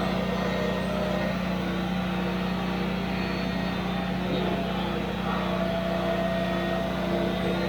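Lawn-care machine's engine running steadily at constant speed, with an even hum that does not change.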